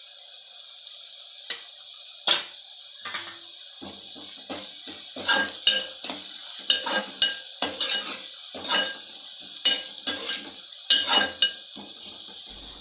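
Browned onions and spices sizzling in oil in a metal kadai, with a metal spoon scraping and knocking against the pan as turmeric is stirred in. There are a couple of single knocks at first, then frequent knocks and scrapes from about four seconds in.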